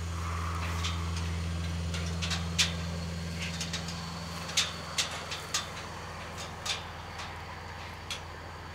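A steady low mechanical hum, like a motor running, with irregular sharp clicks and taps over it, a cluster of them around the middle.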